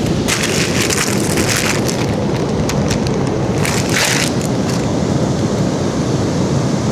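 Wind buffeting the microphone on the beach, a steady low rush with brief crackling bursts from about a third of a second to two seconds in and again around four seconds.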